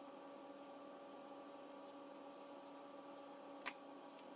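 Near silence: room tone with a faint steady hum, and one small click near the end.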